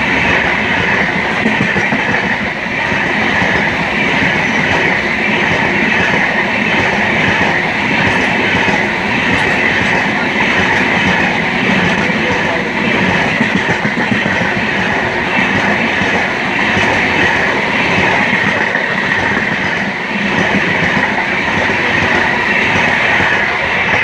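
Express train of LHB coaches running at speed: a loud, steady rolling noise of steel wheels on the rails, with no horn.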